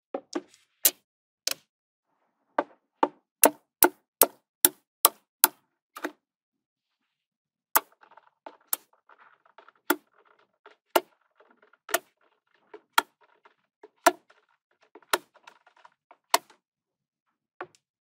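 Small magnetic balls clicking as they snap together: sharp clicks, a quick run of about a dozen in the first six seconds, then about one a second with faint rattling between.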